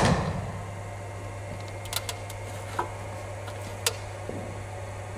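A cricket ball struck during a bowling-machine session: a sharp knock right at the start that rings away over about half a second. After it, a steady low hum with a few faint ticks.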